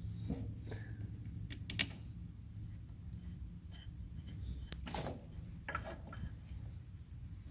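Scattered light metallic clicks and clinks of bolts and hand tools being handled as bolts are fitted, the sharpest about two seconds in and another cluster about five seconds in, over a low steady hum.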